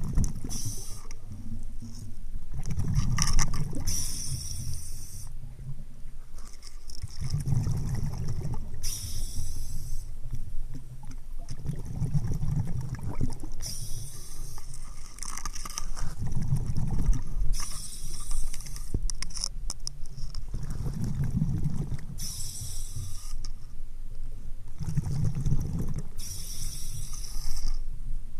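A scuba diver breathing through a regulator underwater. A short hissing inhale alternates with a rumbling burst of exhaled bubbles, about every four to five seconds.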